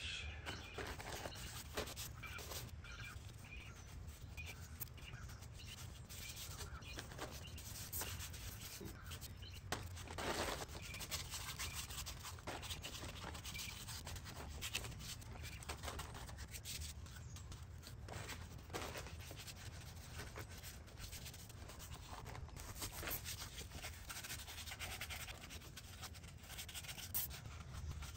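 Hand scrubbing of a dirty aluminium engine block from a Porsche Boxster 986 with a handheld scrubber soaked in foam cleaner: irregular rubbing and scratching strokes, with a few longer, harder strokes, over a steady low background rumble.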